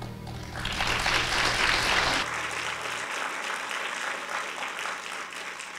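Church congregation applauding, the clapping swelling about half a second in, over the last held low notes of the music, which stop about two seconds in.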